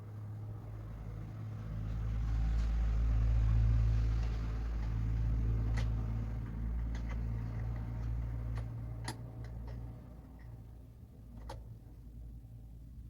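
Cement mixer's electric motor running with a steady mains hum, building up over the first couple of seconds and dying away about ten seconds in. A few sharp clicks sound over it.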